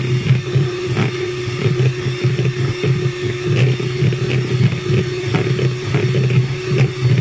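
Electric hand mixer running steadily, its beaters churning thick cake batter, with irregular light knocks as they strike the bowl.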